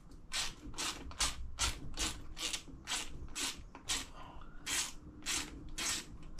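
Socket ratchet wrench clicking in short rasping strokes, about two or three a second, as it undoes a fixing left in the gearbox casing; the strokes come a little slower after about four seconds.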